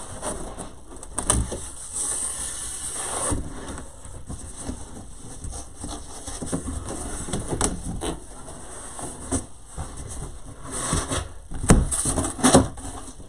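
Large corrugated cardboard shipping box being unfolded from flat and opened out: cardboard scraping, rustling and creasing, with a few sharp knocks near the end.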